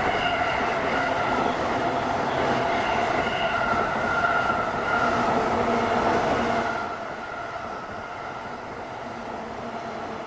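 Japanese bush katydid (kutsuwamushi, Mecopoda niponensis) stridulating: a loud, continuous call that drops in level about seven seconds in.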